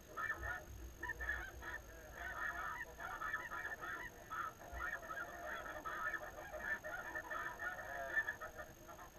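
Snow geese calling: a dense chorus of many overlapping calls that goes on without a break.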